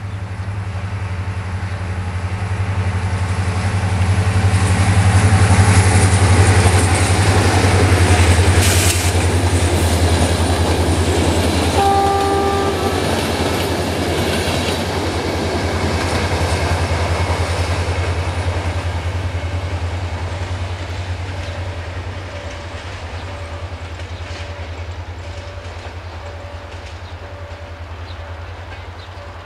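CFR class 65 'GM' diesel-electric locomotive hauling a passenger train past, its engine rumbling low, loudest about five to nine seconds in and fading as it pulls away. One short horn blast sounds about twelve seconds in. A regular beeping tone repeats from about twenty seconds in.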